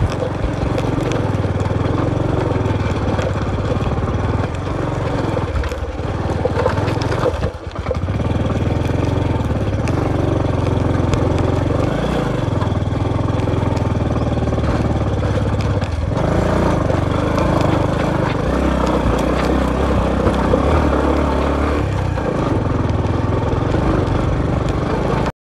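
Motorcycle engine running at low speed over a rough stony dirt track, its pitch shifting as the throttle changes, with scattered clicks and rattles from the rocky surface. The engine sound briefly drops about seven and a half seconds in.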